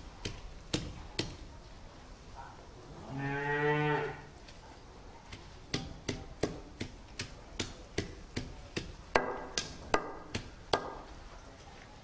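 A stone roller pounding garlic and leaves on a flat grinding stone, dull knocks about two to three times a second with a pause of a few seconds. About three seconds in a cow moos once, for about a second, louder than the pounding.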